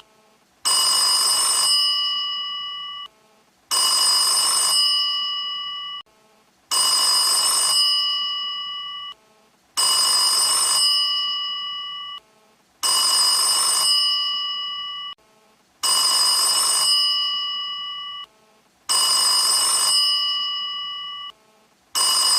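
Vintage telephone's mechanical bell ringing in a repeating pattern: a ring of a little over two seconds, then a short pause, about every three seconds, eight rings in all.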